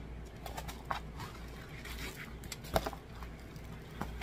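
Rolled diamond-painting canvas in a clear plastic sleeve being handled and unrolled: scattered crinkles and rustles of the plastic and canvas, with a sharper click about three seconds in.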